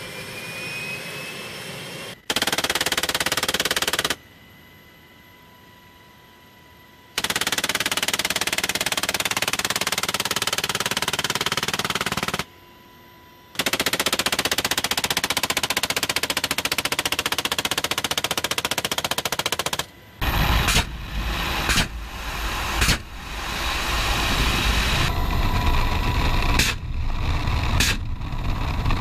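Belt-fed heavy machine gun fired from a helicopter door in long, rapid bursts with short pauses between them. In the last third the helicopter's rotor and engine rumble underlies shorter bursts of fire.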